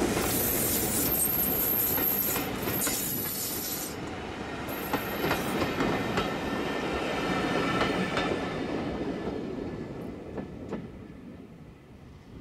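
Steam-hauled passenger train rolling past, its wheels clicking over rail joints, with a thin high wheel squeal in the first few seconds; the sound fades away in the last few seconds as the train moves off.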